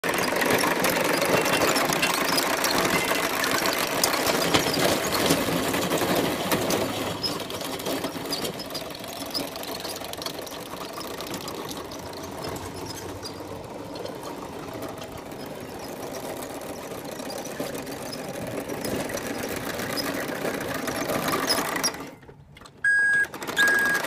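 Homemade mini bulldozer running on its metal crawler tracks, a fast continuous mechanical rattle of drive and tracks. Near the end the sound cuts out briefly and a steady electronic beeping begins.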